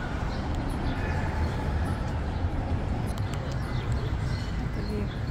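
Wind buffeting the microphone as a low rumble while walking along a city sidewalk, with footsteps and faint street noise underneath.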